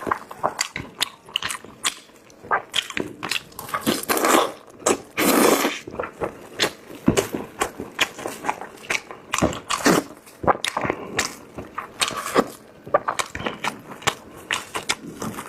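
Close-miked eating of braised chicken drumsticks: biting and chewing, with many short irregular clicks and smacks and a longer noisy stretch about four to five seconds in.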